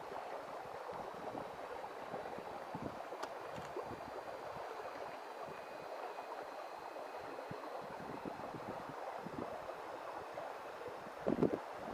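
Steady rushing outdoor background noise, with a faint thin high whine in the middle stretch from the radio-controlled tipper trailer's tipping mechanism as its bed rises. A few louder rustles come near the end.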